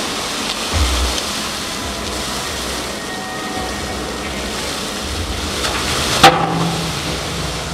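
Water pouring and splashing out of a material handler's raised bucket in a steady rush, with a sharp hit about six seconds in.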